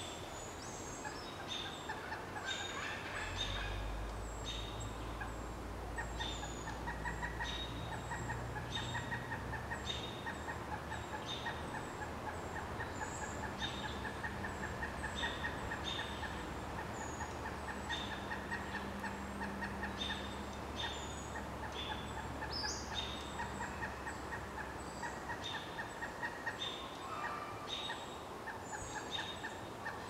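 Pileated woodpecker chicks, a day from fledging, calling from the nest hole in a long, fast chattering series of notes that starts a few seconds in and runs on for about twenty seconds. Short high calls from other birds repeat throughout, and a low steady drone sits underneath most of it.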